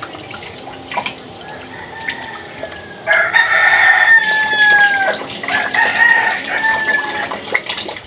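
A rooster crowing twice, each crow about two seconds long, the first ending in a falling note, over water running steadily from a tap.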